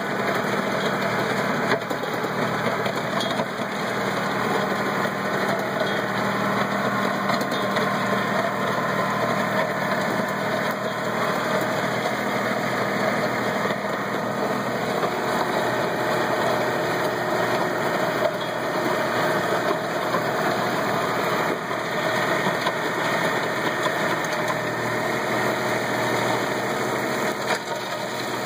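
Kubota B1700E compact tractor's diesel engine running steadily under load while the tractor pulls a rear grading blade through dirt.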